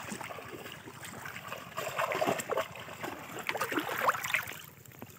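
Shallow muddy water splashing and sloshing as bamboo cone fish traps are plunged into it and hands grope inside them. The splashes come irregularly, busiest from about two seconds in to near the end.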